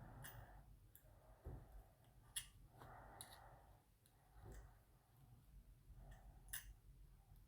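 Faint, irregular light clicks, about eight of them, of small metal tools such as tweezers touching watch parts as a pocket-watch movement is being worked on.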